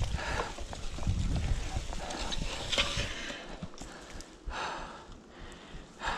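Cyclocross bike rolling over dry fallen leaves and bumpy dirt singletrack, its tyres crunching and the bike rattling and knocking over bumps. It gets quieter past the middle as the bike slows.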